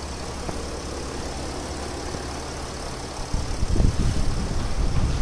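Mercedes ML 350's V6 engine idling steadily. About three seconds in, a louder, uneven low rumble joins it.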